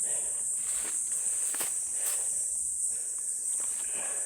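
Steady high-pitched chorus of insects, a continuous even drone, with a few short rustles and knocks.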